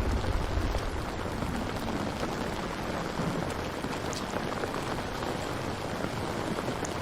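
Steady rain falling, a dense even patter with occasional distinct drops. A low rumble of thunder dies away in the first second.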